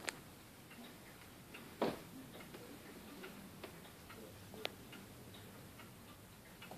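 Longcase clock ticking, about one tick a second, with one louder, heavier knock about two seconds in; the chime rods are not struck.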